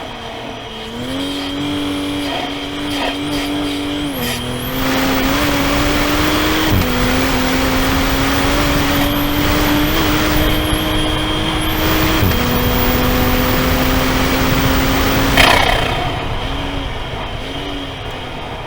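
Toyota GR Supra (A90) engine heard from inside the cabin, accelerating hard with three upshifts, over a steady hiss of tyres on a wet track. Near the end the throttle is lifted and the engine note drops away.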